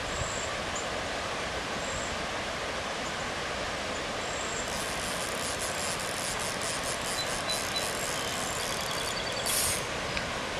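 Creek water flowing steadily over a rocky bed, a constant rushing hiss. About halfway through, a run of rapid faint high clicks is heard over it for several seconds, ending with a short hiss.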